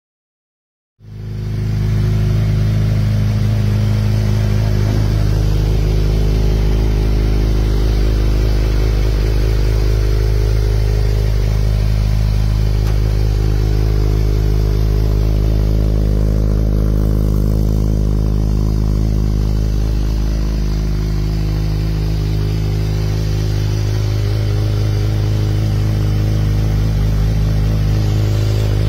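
A 2021 Honda CBR1000RR-R Fireblade's inline four-cylinder engine idling steadily through an Akrapovič exhaust. The sound comes in about a second in.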